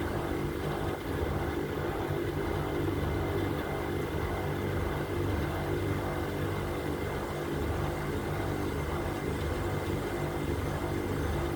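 Electronic Dream Blue 6.8 washing machine running in its spin cycle: a steady mechanical hum with a few fixed low tones. The machine is being tested for a noise that comes on as the spin speed rises, which persists even after the tensioners and drum centring were checked.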